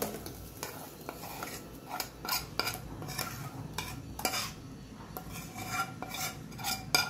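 Metal spoon scraping a thick masala paste out of a steel bowl, with irregular scrapes and light clinks of metal on metal.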